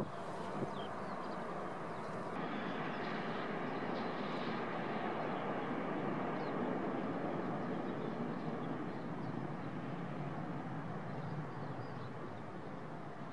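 Jet airliner engines at approach power, heard as a steady rushing noise that swells a little in the middle and eases off toward the end. From about two seconds in, the source is a Ryanair Boeing 737-800 on a crosswind landing.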